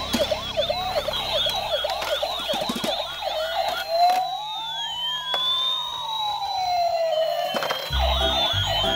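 Several toy ambulances and a toy fire-rescue car sound their electronic sirens at once, fast warbling wails overlapping. From about four seconds in, a slower siren takes over, rising and falling in long sweeps. A beat of music comes in near the end.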